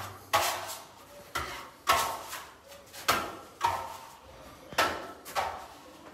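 Steel trowel burnishing a lime-putty Venetian plaster wall: a run of short rasping strokes, about two a second, with a faint metallic ring in each stroke.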